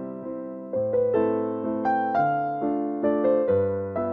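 Background music: a soft piano-like keyboard tune, each note or chord struck and left to fade, two or three a second.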